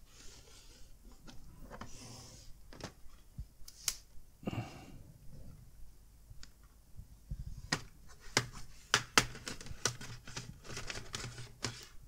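Plastic clips of an HP Pavilion 15 laptop's bottom case clicking loose as a plastic pry tool is worked along the seam. Scattered sharp clicks and snaps, coming thicker in the last few seconds.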